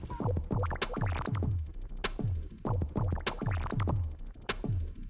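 Electronic background music with a steady drum-machine beat: deep kick drums that fall in pitch about three times a second under fast, even hi-hat ticks.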